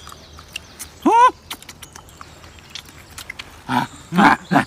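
Eating by hand: faint wet smacking and chewing clicks. A short, high, rising-and-falling vocal call comes about a second in, and louder breathy mouth noises come near the end.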